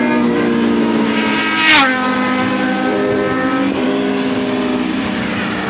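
Superbikes passing at speed; one flies by about a second and a half in, its engine note dropping sharply in pitch as it goes past, and a steady engine tone then carries on and slowly fades.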